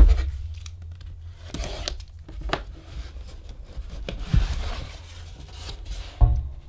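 A cardboard shipping box being handled and opened: scattered rubbing, tapping and tearing of cardboard as the lid is pulled open, with a louder knock near the end.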